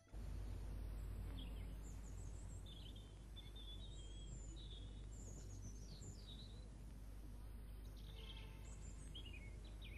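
Faint outdoor ambience: small birds chirping and twittering in short, scattered calls over a steady low rumble.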